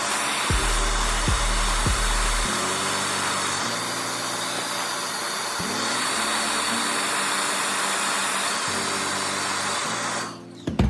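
Background electronic music with a low beat, over a steady even hiss.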